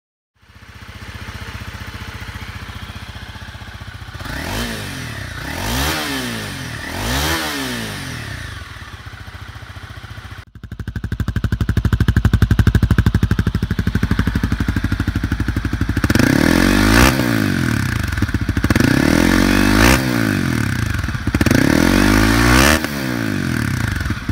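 Honda CRF250L Rally's single-cylinder four-stroke engine idling and revved by hand three times on the stock exhaust. After a cut it idles and revs three times more on a Yoshimura RS-4 full exhaust system, which is clearly louder.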